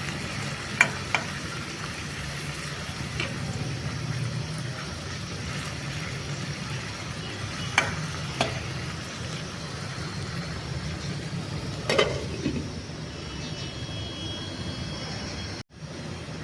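Chicken frying in a pan with a steady sizzle, stirred with a spatula that knocks against the pan now and then, with a louder clatter about twelve seconds in.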